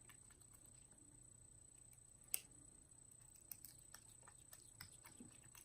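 Near silence: room tone with a few faint clicks and light taps, one sharper click a little after two seconds in.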